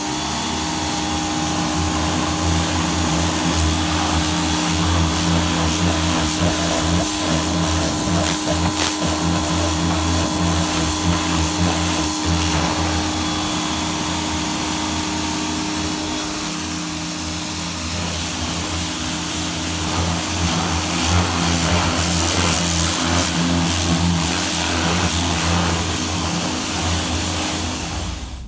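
Electric pressure washer (Greenworks 1600 psi) running steadily, its water jet hissing against a car's alloy wheel and tire over a steady motor hum.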